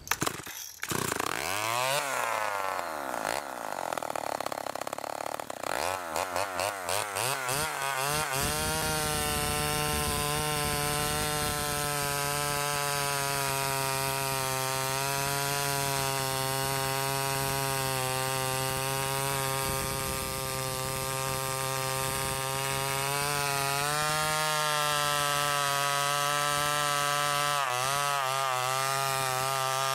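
Homelite XL-101 two-stroke chainsaw revving unevenly up and down for the first several seconds, then running at a steady high speed as it cuts through a log. The owner feels it may have an air leak.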